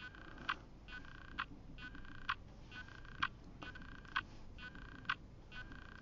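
A faint, regular chirp-and-click repeating a little faster than once a second: each time a short buzzy chirp, then a sharp click.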